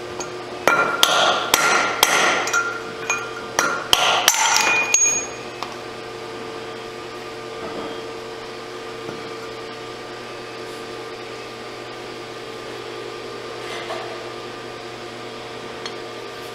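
Hammer striking a punch to drive the upper bearing out of a Shimpo RK-2 pottery wheel's metal bearing housing: a quick series of ringing metal taps for about four and a half seconds, then they stop.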